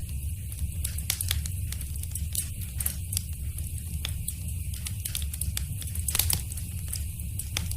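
Fire burning in a fireplace, crackling with irregular sharp pops and snaps over a steady low rumble.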